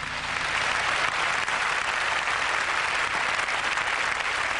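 Large audience applauding, the clapping building up over the first second and then holding steady.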